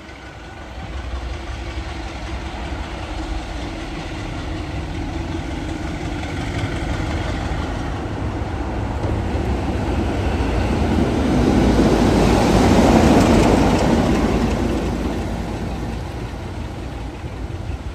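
Class 33 diesel locomotive's Sulzer 8LDA engine running as the locomotive approaches and passes close by, growing louder to a peak about two-thirds of the way through, then fading as it moves away.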